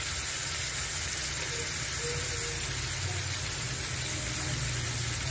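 Whole Indian mackerel coated in green masala sizzling steadily in hot oil in a non-stick frying pan over a low gas flame.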